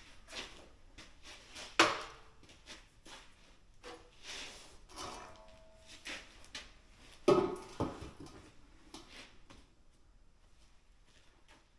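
Scattered knocks and clatter of objects being handled, loudest about two seconds in and again around seven seconds in, with a short squeak about five seconds in.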